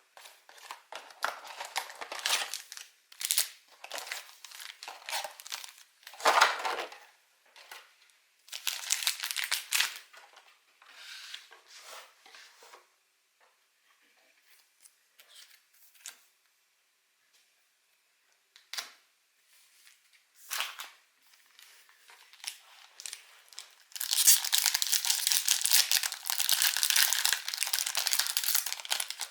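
Plastic and foil packaging of a Pokémon trading card box being torn and crinkled by hand. Bursts of tearing and rustling come for about the first dozen seconds and then pause with a few small ticks. About three-quarters of the way in, steady crinkling starts and runs on.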